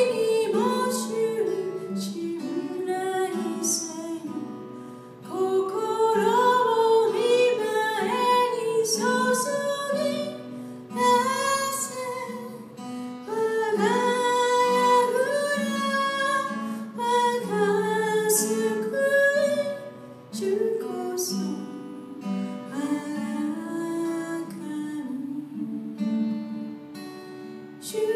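A woman singing a worship song, accompanying herself on acoustic guitar, the melody coming in phrases with short breaths between them.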